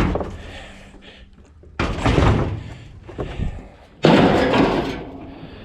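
Three heavy bangs about two seconds apart, each dying away over a second or so; the last is the loudest.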